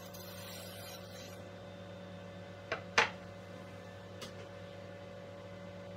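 Handling sounds as the desert ironwood saya halves and the knife are moved about over the mill table: a faint knock, then a sharp one about three seconds in, and a light click a second later, over a steady low hum.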